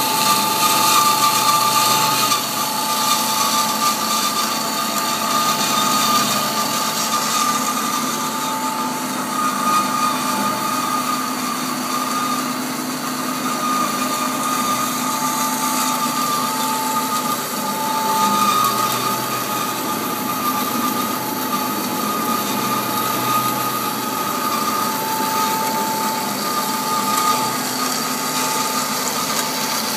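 Bomar Individual 510.330 GA horizontal metal-cutting bandsaw running in automatic cycle, its band blade cutting through round metal bar. A steady machine whine runs over the hiss of the cut, with a second, lower tone that comes and goes.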